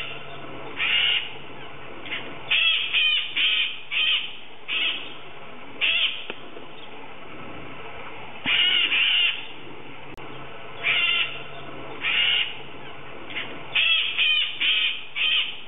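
Parrot calls: short, harsh screeches, some single and some in quick runs of three or four, every second or two.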